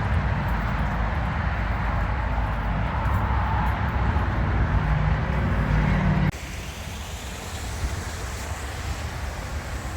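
Steady rumble of vehicle and road noise. It cuts off suddenly about six seconds in to a quieter rumble.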